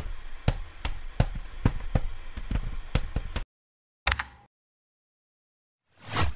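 Editing sound effects on an animated slide: a rapid, irregular run of clicks and taps that cuts off suddenly about three and a half seconds in, a brief burst just after four seconds, then a whoosh swelling up near the end.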